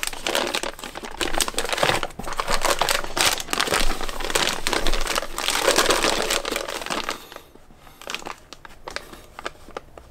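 Plastic bags holding resin model-kit parts crinkling as they are handled, busy for about seven seconds, then quieter with scattered rustles.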